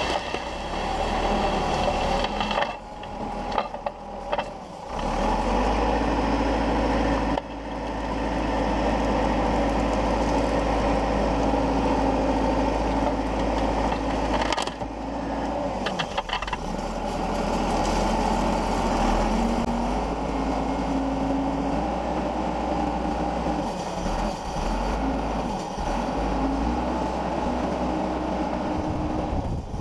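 JCB backhoe's diesel engine running under load, its note shifting up and down as the hydraulics work the feller buncher shear head. A few brief sharp knocks break in near the start and again about halfway.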